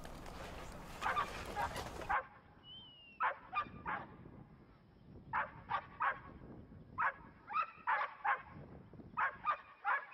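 A herding dog barking repeatedly at sheep, with short sharp barks coming in clusters of two or three.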